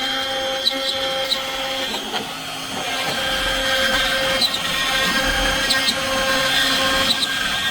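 A homemade CNC machine running, its motors giving steady whining tones that change pitch about two to three seconds in as the machine changes its motion, with small ticks throughout.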